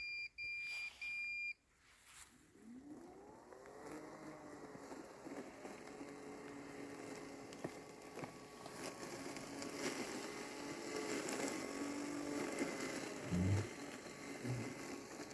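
Landxcape LX790 robot lawn mower finishing its start-up beeps, then its motor spinning up with a rising whine and running steadily as it cuts through tall wet grass and weeds. Two short low thumps come near the end.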